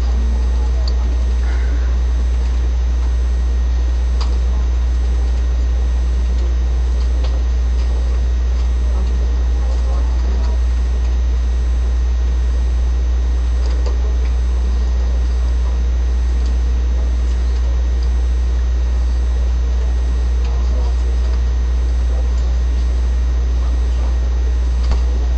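Loud, steady low hum with an even hiss above it, unchanging throughout; faint talking is barely heard beneath it.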